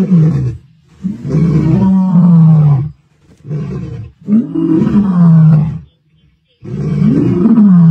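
Male lions roaring: a run of deep, long roars, one after another with short pauses, each sliding down in pitch at its end.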